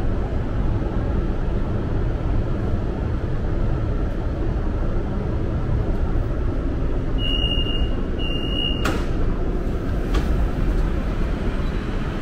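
Steady low rumble inside a Hanoi Metro Line 2A (Cat Linh–Ha Dong) train car standing at a station. About seven seconds in come two short, high, same-pitched beeps of the door warning, followed at once by a sharp clunk and, a second later, a fainter knock.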